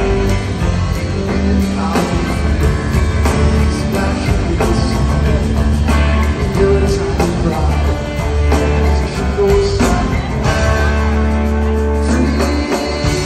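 A live rock band playing loud through a large PA, with electric guitar, keyboards, bass and drums, heard from within the crowd. Long held bass notes carry under the band, and the bass line changes near the end.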